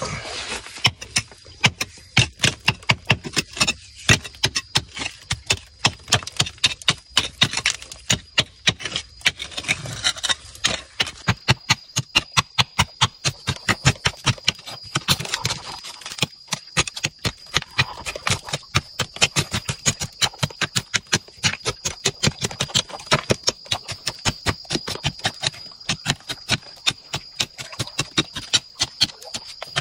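A hand tool chipping and scraping at a hard wall of pebbly earth and rock, with sharp strikes a few times a second, digging out ore rock.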